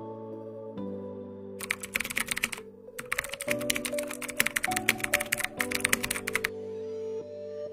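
Rapid keyboard-typing clicks over soft background music. The clicks come in two runs: they start about one and a half seconds in, pause briefly near three seconds, then go on until shortly before the end.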